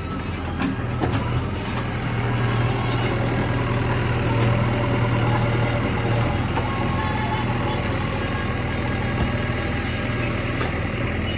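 Heavy diesel machinery engine running steadily, its low hum growing louder about two seconds in and easing off a little past halfway.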